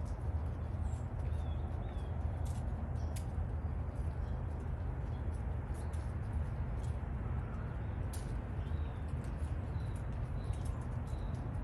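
Outdoor ambience of falling leaves: scattered light ticks and rustles over a steady low rumble, with a few short, high bird chirps, several in a row near the end.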